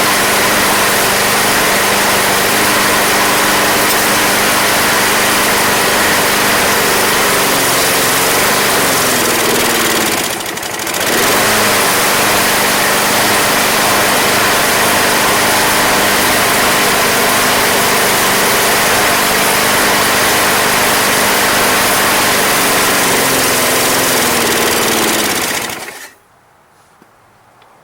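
Briggs & Stratton 190cc single-cylinder mower engine running on a replacement aftermarket carburetor, with a little bit of a miss. About ten seconds in it dips briefly and recovers. Near the end it winds down and stops.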